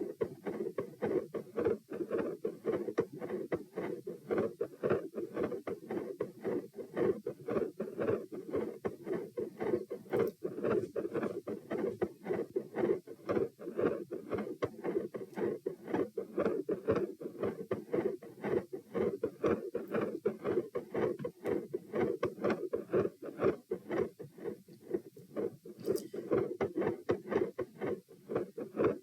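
Fast heartbeat heard through a recording at the chest, a quick, even run of soft beats with no break. Its rate swells and slows in step with breathing, the pronounced phasic respiratory pattern, running at roughly 100 to 120 beats a minute.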